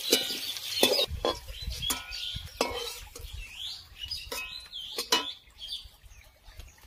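Metal spatula scraping and knocking in a steel wok and against a steel plate as fried raw jackfruit pieces are lifted out, with scattered clinks, a few of them ringing briefly. The knocks thin out near the end.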